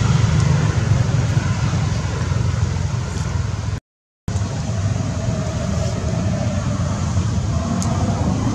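Steady low outdoor rumble with a haze of noise over it, broken by a half-second dropout to silence a little before halfway.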